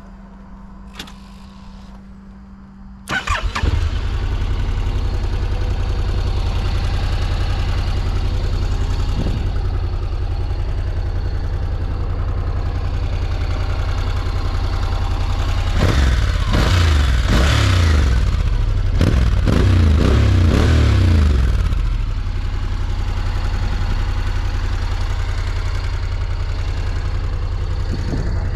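Honda NC750XD's 745 cc parallel-twin engine started: a quiet hum and a few clicks, then the starter cranks and the engine catches about three seconds in and settles to idle. Between about 16 and 22 seconds it is revved in a few throttle blips that rise and fall, then it returns to a steady idle.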